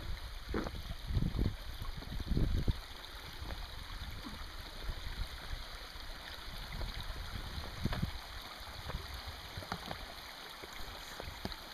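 Small creek running and trickling steadily, with a few low thumps in the first three seconds and another about eight seconds in.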